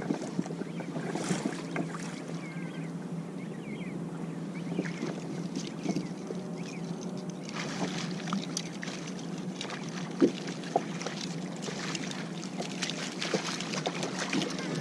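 Water sloshing and splashing against a kayak hull, over a steady low hum, with scattered small knocks and clicks and one sharper knock about ten seconds in.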